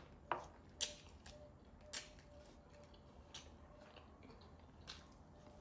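Quiet eating sounds: a handful of sharp crunches and clicks, a second or so apart, with the loudest near the start and about two seconds in.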